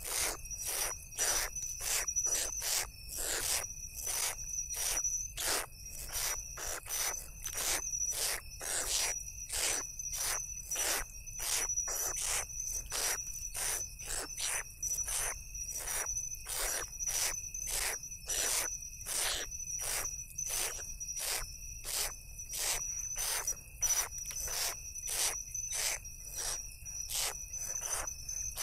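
Owlets giving rhythmic hissing begging calls, about two short hisses a second, while being fed. A steady high insect trill runs underneath.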